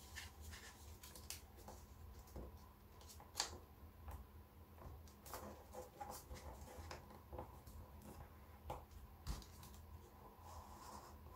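Faint rustling and crinkling of origami paper being folded and pressed into creases by hand, with scattered soft ticks and one sharper tap about three and a half seconds in, over a faint steady hum.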